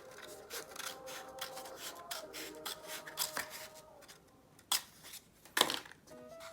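Kitchen prep handling sounds: a run of short scraping and rubbing strokes, then two sharp taps about a second apart near the end.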